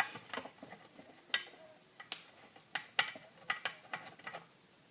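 Light, irregular clicks and taps, about ten over a few seconds: small screws and a hand tool working on a tube radio's metal chassis during disassembly.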